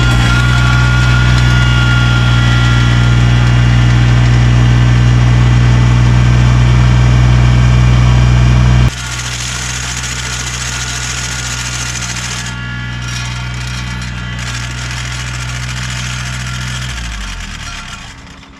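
Kubota BX23S compact tractor's three-cylinder diesel engine running steadily. About nine seconds in it drops abruptly to a lower level, then slows and stops near the end.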